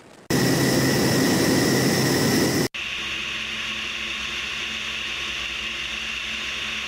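Aircraft engine noise in flight, heard from on board: a loud steady run that cuts off abruptly a little under three seconds in, followed by a quieter steady drone with a low hum.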